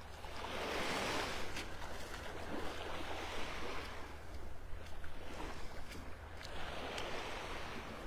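Small Gulf waves lapping and washing up on a sandy beach, in two gentle swells: one about a second in, another from about five to seven seconds.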